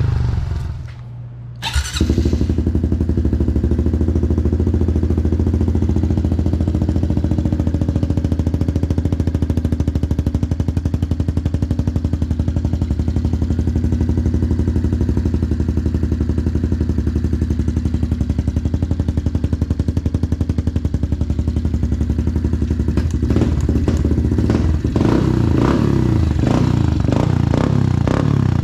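Honda CRF110F pit bike's small air-cooled single-cylinder four-stroke engine idling steadily after a brief lull about a second in, then revved in a series of short throttle blips over the last few seconds.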